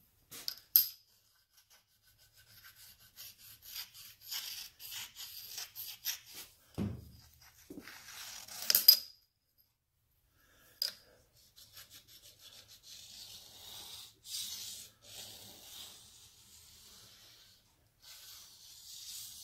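Hands rubbing and sliding a flat bar along the table ways of a surface grinder: a run of short scraping strokes, with sharp clicks about a second in and about nine seconds in. A longer, softer rub follows in the last several seconds.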